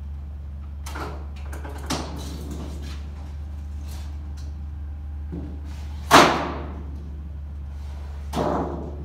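Portable aluminium siding brake clanking as its clamp and bending handle are worked on trim coil: a few light knocks, one loud metal clank about six seconds in that rings briefly, and another clank near the end. A steady low hum runs underneath.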